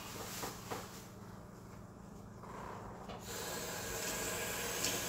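Handling noise of rubbing and rustling over a steady low hum. The rustling grows louder and fuller about three seconds in and lasts almost to the end.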